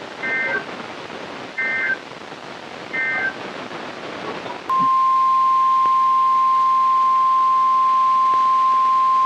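NOAA Weather Radio alert: three short bursts of warbling SAME digital-header data tones over radio hiss, then, about 4.7 seconds in, the steady single-pitch 1050 Hz weather radio warning alarm tone begins. It comes before a severe thunderstorm warning.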